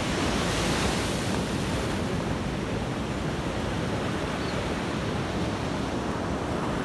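Sea waves washing up a beach, a steady rush of surf, with wind rumbling on the microphone.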